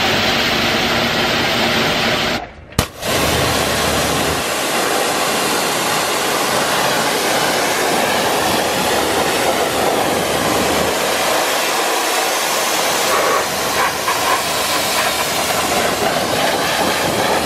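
Kränzle 1122 TST electric pressure washer blasting a steady jet of water onto a car's alloy wheel and tyre, rinsing off loose dirt. The spray breaks off briefly about two and a half seconds in, then runs on.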